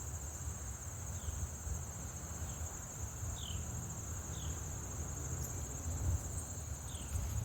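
Crickets trilling steadily at a high, continuous pitch, with a few short, faint falling chirps scattered through and a low rumble underneath.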